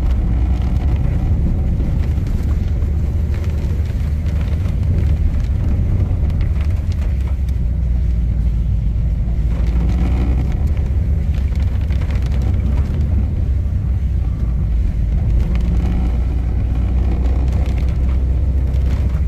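Car cabin noise while driving on a mountain road: a steady low rumble of engine and tyres heard from inside the car.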